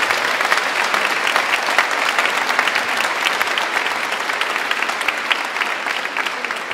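A large choir applauding in a cathedral nave: a dense wash of many people clapping, slowly dying down toward the end.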